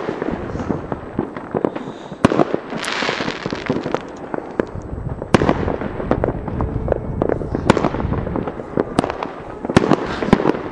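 A fireworks display going off: a string of sharp bangs and crackles, with a hissing rush about three seconds in and a dense run of bangs near the end.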